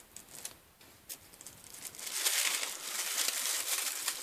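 Honeycomb tissue paper (Magnolia Doo-Bee-Pops) crinkling and rustling as it is handled and opened out. The rustling starts about two seconds in, after a faint stretch with a few small ticks.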